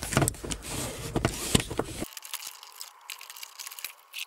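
Plastic rear side trim panel of an FD RX-7 interior being popped loose: scattered clicks, crackles and scrapes of trim and clips, much fainter after about two seconds.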